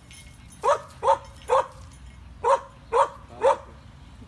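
A dog barking: two runs of three short, sharp barks about half a second apart, with a pause of about a second between the runs.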